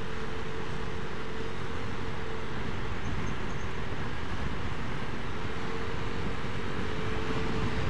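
Steady riding noise from a motor scooter at road speed: the engine running under a constant rush of wind and road noise, with a faint steady hum that drops away midway and returns near the end.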